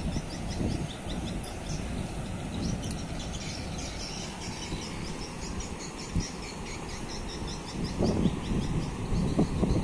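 Wind rumbling on the microphone in uneven gusts, with steady rows of small high-pitched chirps in the background.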